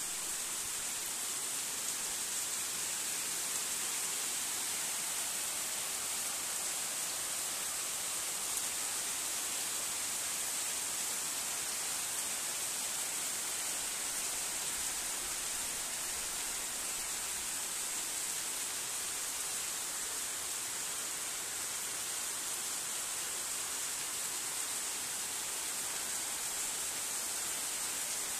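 Heavy rain pouring steadily onto trees, leaves and bare ground, a dense, even hiss that holds constant throughout.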